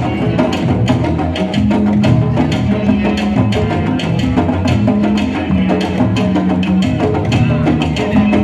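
Live candombe music: a drum group playing a driving rhythm, with dense sharp clicks of sticks striking wood, over a bass line that steps between held low notes.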